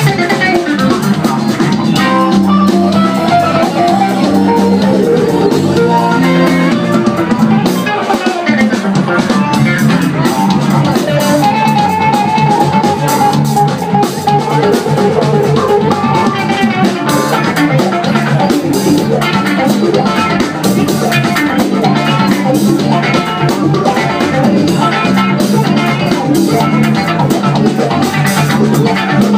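Live band playing an instrumental with electric guitar, bass guitar and drum kit, loud and continuous, heard from among the audience.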